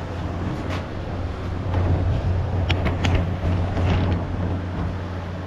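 A few light metallic clicks and clinks as the wheel's bolt, spacer and washers are handled and fitted, over a steady low hum.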